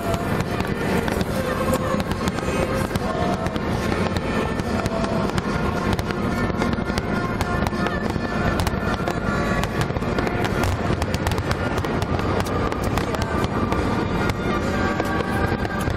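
Fireworks grand finale: a rapid, continuous barrage of aerial shells bursting, bang after bang with no gaps, with music playing underneath.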